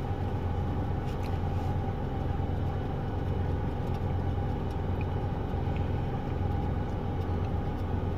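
Steady low rumble of an idling car, with a few faint clicks over it.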